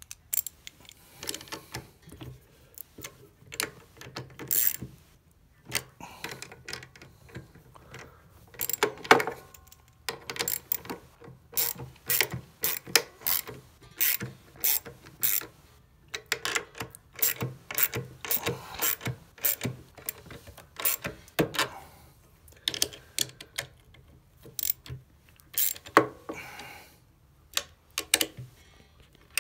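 Hand ratchet wrench clicking in short runs while bolts on a pedal extender bracket are tightened, with metal clinks of the tool against the hardware.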